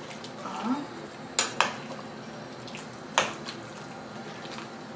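Spoon stirring beans in thick tomato sauce in a stainless steel pot, clinking sharply against the pot about a second and a half in, again just after, and once more a little past three seconds.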